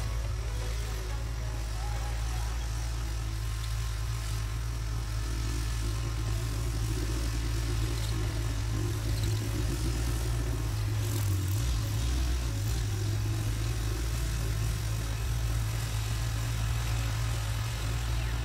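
A farm tractor's engine running steadily at a distance as it pulls a rotavator through tilled soil, forming planting beds.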